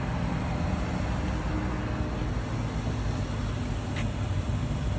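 Steady low rumble and hum of a car or nearby vehicles, with one short click about four seconds in.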